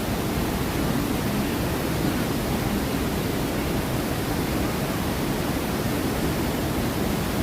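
Steady, unbroken rush of falling water from the artificial waterfalls and rapids of a river-rapids ride.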